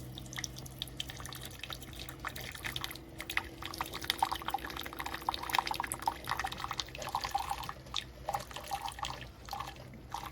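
Keurig K-Iced single-serve coffee maker running a rinse cycle of plain water: water streaming and dripping into the cup in many irregular small splashes, over a steady low hum.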